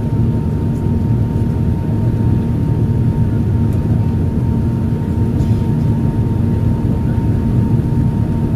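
Cabin noise of an Airbus A380 climbing after takeoff: a steady low roar of engines and airflow heard through the fuselage, with a faint steady tone held above it.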